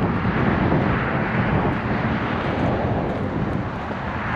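Steady rushing noise of wind buffeting the microphone, heaviest in the low end.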